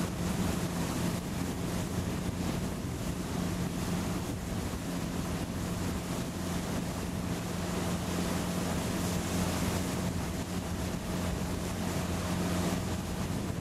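Motorboat engine running at a steady drone while towing a water skier, with wind buffeting the microphone and water rushing past.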